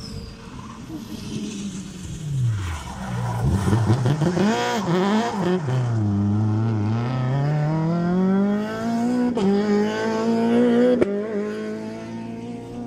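Rally car engine passing on a stage: it drops in pitch as it brakes, blips quickly up and down on the downshifts, bottoms out through the corner about halfway, then accelerates away with the pitch rising steadily. Two sharp cracks come during the acceleration.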